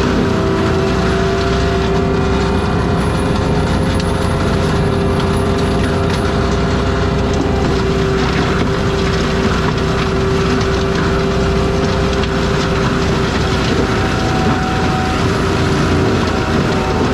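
ASV RT-120F compact track loader with a forestry mulcher head running steadily under load: its diesel engine and spinning mulcher, with a steady whine over the din.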